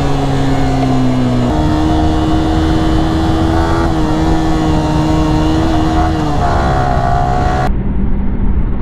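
Motorcycle engine running under way at a fairly steady pitch, stepping up about a second and a half in, then dipping slightly near the end.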